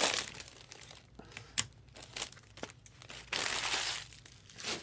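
Plastic wrapping of trading card packaging crinkling and rustling as it is handled, with a few light clicks and a longer rustle about three and a half seconds in.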